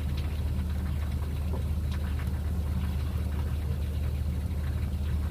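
Steady low engine hum while a water jet is sprayed into the fins of a Caterpillar D9T dozer's radiator core, with a light hiss of spray. The core is being flushed of packed soil that clogged it and caused the engine to overheat.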